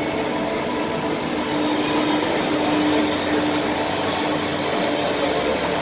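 Steady drone of large Claas harvesting machines' diesel engines running as the machines drive in, with a faint steady hum tone through it.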